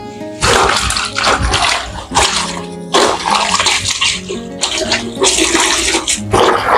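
Clothes being hand-washed in a plastic bucket of water: repeated sloshing and splashing as they are worked and squeezed by hand, over background music.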